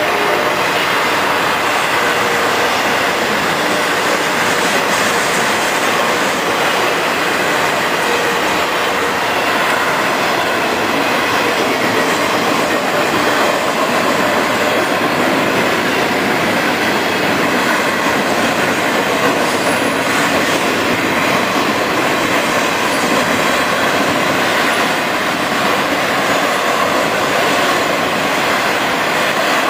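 Intermodal freight train of highway trailers on flatcars rolling past a grade crossing: a loud, steady running noise of steel wheels on the rails, with no break.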